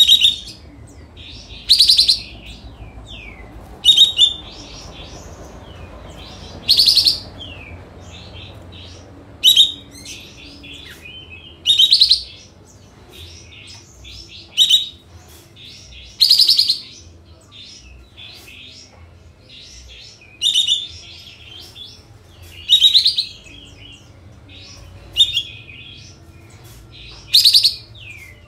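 A kapas tembak (olive-winged bulbul) calling: about a dozen loud, short, rapid-fire bursts every two to three seconds, the sharp 'nembak' calls, with softer chirps and twitters in between.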